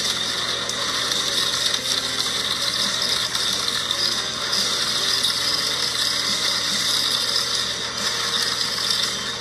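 Toy wrestling-ring playset's spinning platform whirring steadily, with small diecast monster trucks rattling and clattering as they are spun around on it.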